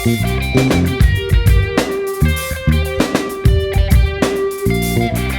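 Background rock music: electric guitar over a drum kit with a steady beat.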